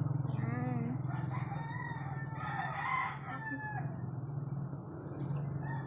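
A rooster crowing once, a long rising-and-falling call starting about a second in, over a steady low hum.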